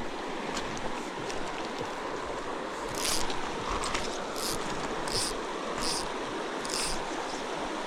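Steady rush of a flowing mountain creek. From about three seconds in, it is joined by short, high, hissing rasps, roughly one a second.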